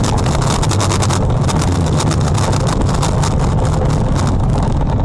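Loud, steady rumble of a moving vehicle, with rapid crackling noise on the microphone over it.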